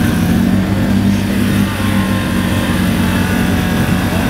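ATV engine running at a steady speed, with the quad bogged down in deep mud.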